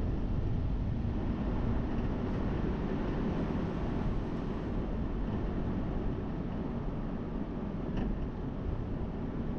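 Steady low rumble of a vehicle driving, road and engine noise, with a faint click about eight seconds in.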